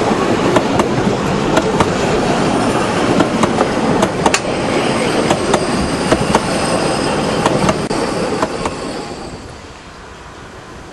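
Narrow-gauge railway coaches rolling past close by: a steady rumble of wheels on rails with irregular sharp clicks from the rail joints. About eight seconds in the sound falls away to a much quieter background.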